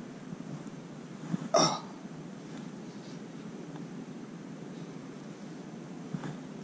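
A single short vocal sound, hiccup-like, about one and a half seconds in, over a faint steady background.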